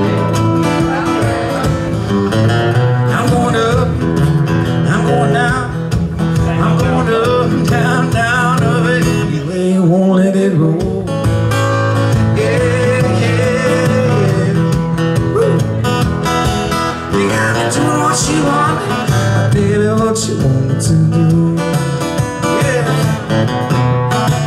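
Acoustic guitar strummed steadily in a live song, amplified through a PA, with a short break in the chords about ten seconds in.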